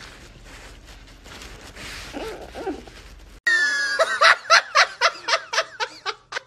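Faint background noise, then from about halfway a person laughing hard in quick repeated bursts, about four a second.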